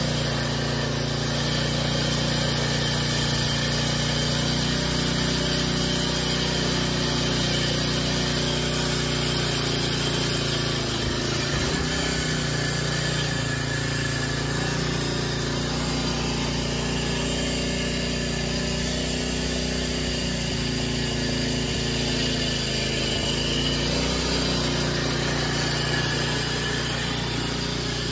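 Troy-Bilt Pro Line tiller's 6.75 hp single-cylinder engine running steadily, being tested after a drive-belt replacement.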